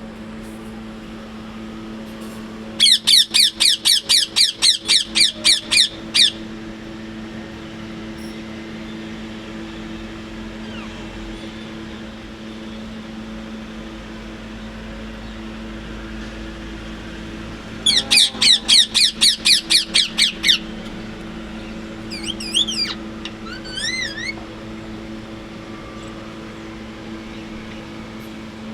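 Parrot giving two runs of loud, shrill, rapidly repeated calls, about four a second for about three seconds each, with a long pause between them. These are followed by a few softer whistled notes. A steady low hum runs underneath.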